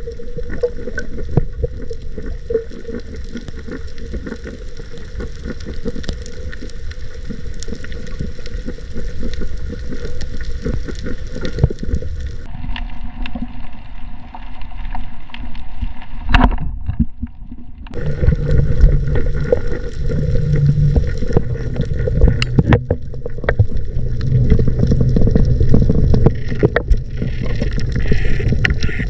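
Underwater sound of water noise with dense crackling clicks and a steady hum, changing abruptly about twelve seconds in and again near eighteen seconds.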